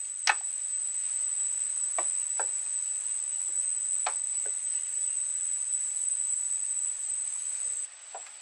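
A steady high-pitched whine, dropping in level near the end, with half a dozen short sharp knocks scattered through it.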